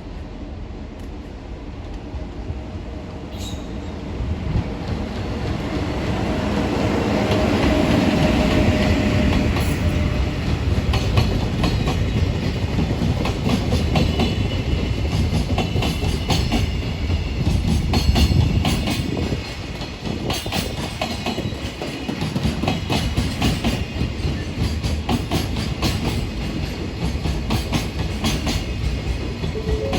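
EF66 electric locomotive hauling a high-speed container freight train through a station: the sound builds as the locomotive approaches and passes about eight seconds in, then turns to the rhythmic clatter of the wagons' wheels over the rail joints.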